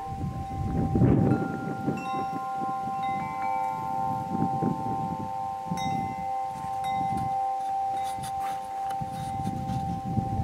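Tubular wind chimes ringing: several clear tones overlap and hang on for seconds, with fresh strikes every second or few as the tubes swing.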